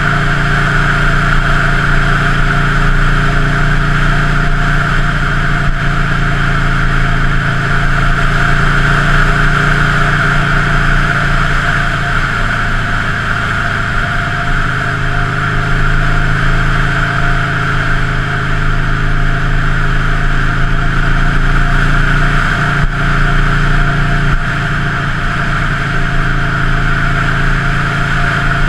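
Buell Lightning XB9's air-cooled V-twin engine running steadily.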